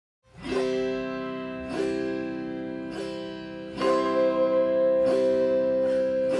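Music: after a brief silence, a plucked-string instrument plays ringing chords about once a second, each fading before the next, growing a little louder in the second half.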